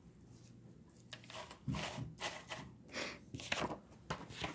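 Paper and cardboard scraping and rustling in a run of irregular strokes, starting about a second in, as a folded brochure card is worked out of the packaging by hand.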